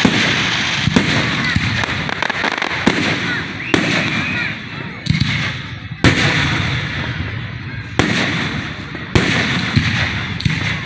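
Aerial fireworks shells bursting at close range. About nine sharp bangs come every one to two seconds, each followed by a fading crackle and hiss.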